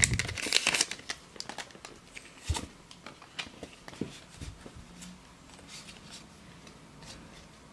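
Foil booster-pack wrapper crinkling for about the first second. Then softer rustling and light clicks of a stack of Pokémon trading cards being handled and sorted in the hands, with one sharper tap about two and a half seconds in.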